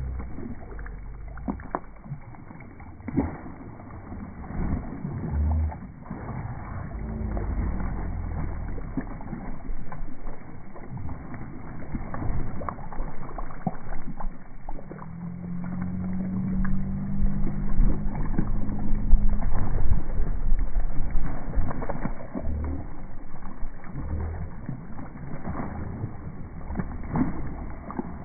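Water splashing and sloshing as a dog swims and paddles through a pool beside a wading person, in an irregular run of splashes. A low droning tone joins in for a few seconds a little past the middle.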